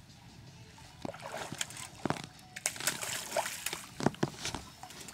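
Hooked stingray thrashing at the surface beside the boat: irregular water splashes, starting about a second in.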